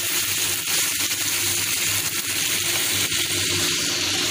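Chicken curry with potatoes sizzling and frying in a kadhai as the gravy cooks down, with a spatula stirring and scraping the pan now and then.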